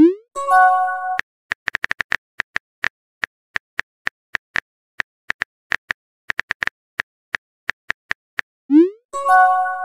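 Phone-keyboard typing clicks at an irregular pace, twice broken by a quick rising swoop and then a short chime of several steady tones: the sound effects of a chat message being sent and appearing.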